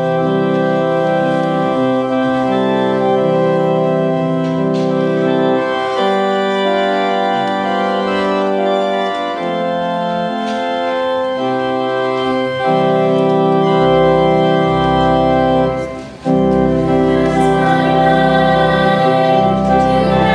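Organ playing the introduction to a hymn in slow, held chords that change every second or two, with deep bass notes joining about two-thirds of the way through.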